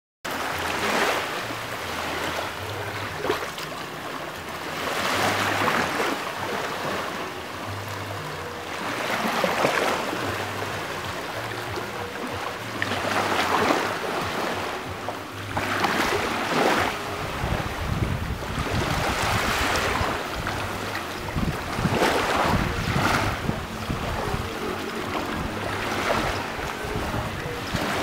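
Ocean surf washing ashore, swelling every few seconds. Wind rumbles on the microphone through the second half.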